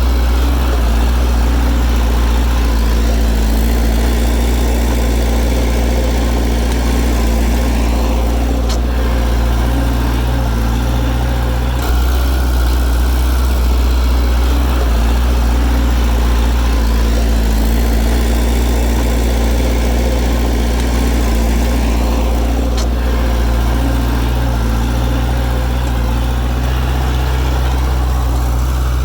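Bulldozer's diesel engine running steadily, a deep continuous drone whose note shifts slightly a few times.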